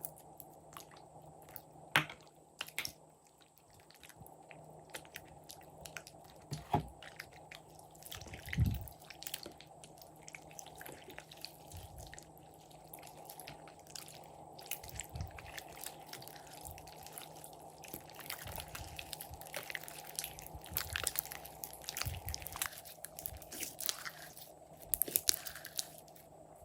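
Slime being stirred and squeezed by hand, making sticky crackling and small popping clicks that grow denser in the second half, with a few sharper clicks and a dull thud early on.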